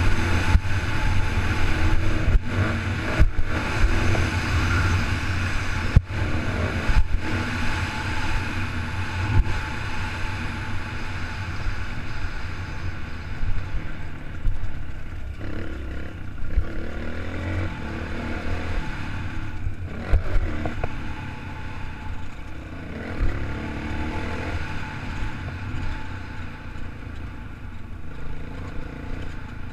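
Motocross dirt bike engine running and revving, with wind noise on the helmet-mounted camera. Sharp knocks come in the first several seconds, and through the second half the engine runs quieter and lower.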